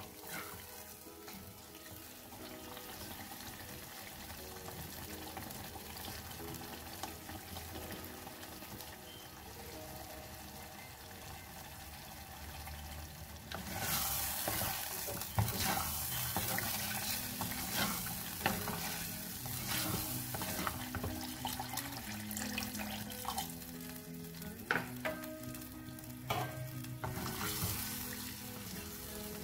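Curry paste sizzling in a clay pot as it is stirred with a wooden spatula. About halfway through, thin liquid is in the pot and the hissing grows much louder, with scattered knocks of the spatula against the pot as it is mixed in.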